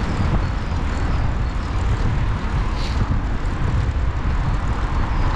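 Steady noise of car traffic on the main road running alongside, over a continuous low rumble.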